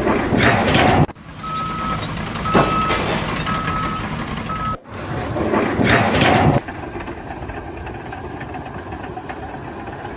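Vehicle reversing alarm beeping in a single steady tone, about once a second, for a few seconds before stopping abruptly. It is followed by a louder stretch of rushing noise.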